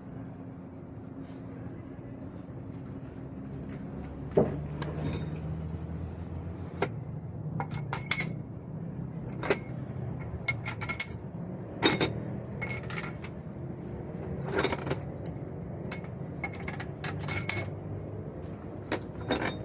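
Metal tools and parts clinking and knocking, a dozen or so short ringing clinks, over a steady low engine hum. A sharp knock about four seconds in, after which the hum changes pitch.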